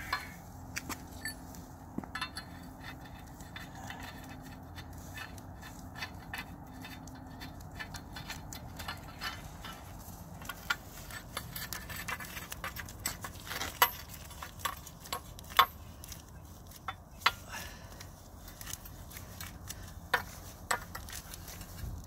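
Threaded 3/4-inch steel pipe being screwed by hand into pipe fittings: scattered metallic clicks, clinks and scrapes of the pipe and threads, with a few sharper clinks.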